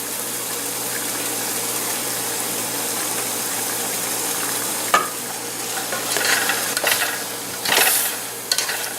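Ground beef and sausage sizzling in a frying pan on medium-high heat, a steady hiss. About five seconds in there is a sharp knock, then irregular scraping as the meat is stirred in the pan.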